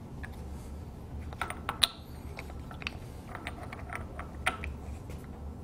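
Hand tool and rotor bolt clicking and clinking against the stainless steel head of a rotary lobe pump as the rotor bolt is loosened: a string of light, irregular metal taps, the sharpest nearly two seconds in.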